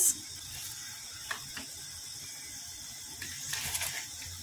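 Tomato sauce boiling in a frying pan: a steady soft sizzle, with a couple of light clicks about a second and a half in and a short crackly patch near the end.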